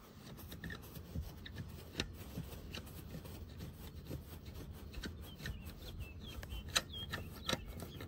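Hand rubbing and fumbling against carpet and the plastic trim under a car seat, with a few faint clicks.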